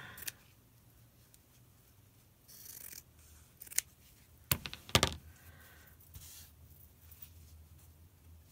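Fabric scissors cutting scraps of quilting fabric: soft rustling with a few sharp snips and clicks in the middle.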